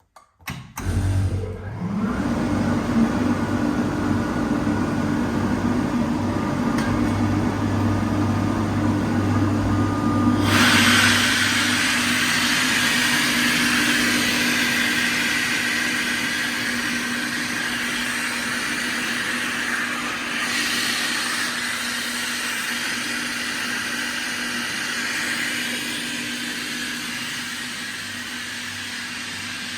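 Kaeser SK 21 rotary screw air compressor starting up from quiet about a second in, then running with a steady motor hum. About ten seconds in, a strong hiss joins in and stays.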